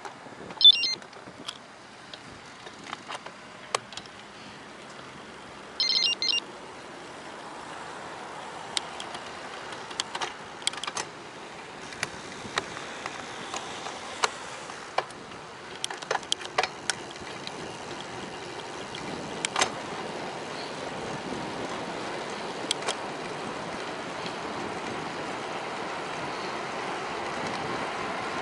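Bicycle ride heard from the bike: a steady rush of wind and tyre noise that grows louder through the second half, with scattered sharp clicks and rattles from the bike. Two short high-pitched tones cut through, one just under a second in and one about six seconds in.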